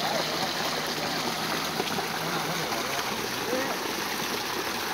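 Stream water pouring steadily through a gap beside a log and net barrier, with faint voices in the background.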